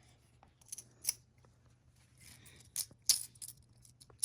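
Plastic magnetic building blocks clicking and clacking together as they are handled and snapped into place: several separate sharp clicks.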